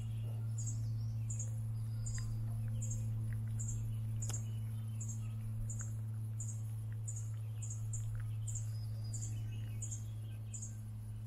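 A steady low hum runs under a short, high chirp from a small animal that repeats evenly, about every two-thirds of a second, with a few faint ticks between.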